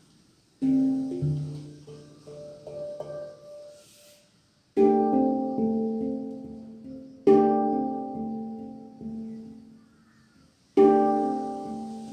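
Handpan being played: four phrases of struck, ringing notes, each opening with a sharp strike and fading out, with brief pauses in between.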